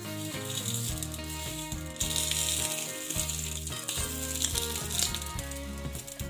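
Soufflé omelette sizzling in oil in a nonstick frying pan, a steady hiss that grows louder about two seconds in, over background music.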